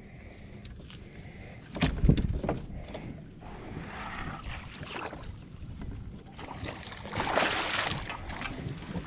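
A hooked snakehead thrashing and splashing at the surface right beside a plastic kayak during the fight. There are heavy thumps about two seconds in, scattered knocks after that, and a burst of splashing about seven seconds in.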